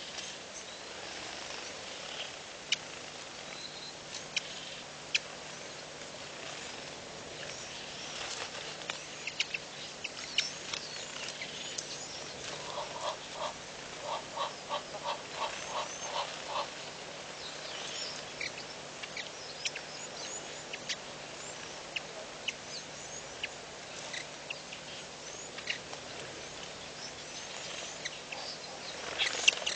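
Wild birds chirping and twittering at scattered moments over a steady background hiss. In the middle comes a run of about ten quick, lower pulsed calls lasting around four seconds.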